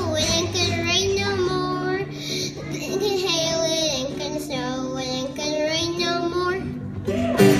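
Young children singing a song in unison over a steady instrumental accompaniment; about seven seconds in the sound grows suddenly louder and fuller.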